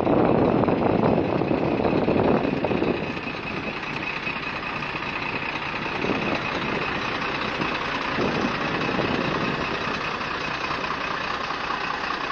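A truck engine idling as a steady rumble, louder and more uneven for about the first three seconds.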